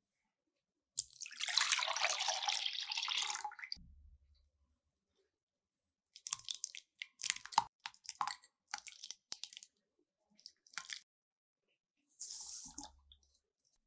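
Liquid poured into a bowl for about three seconds, then a run of light clicks and taps, and a second, shorter pour near the end.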